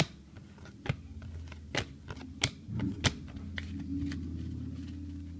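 Trading cards handled one at a time, giving five sharp card clicks less than a second apart, with a low steady hum coming in under them about halfway through.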